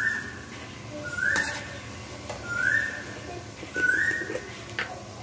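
A short whistled note that rises and then holds steady, repeated at an even pace about every one and a quarter seconds, five times. Two faint clicks fall between the notes.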